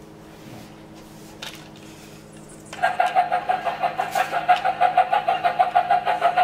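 Peppa Pig toy train's electronic sound effect: a loud beeping tone at one pitch, pulsing rapidly at about five pulses a second, starting about three seconds in.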